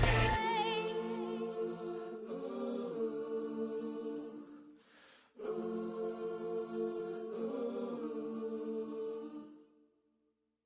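Song outro: held, sustained chords with no beat, broken by a short pause about halfway, then fading out to silence near the end.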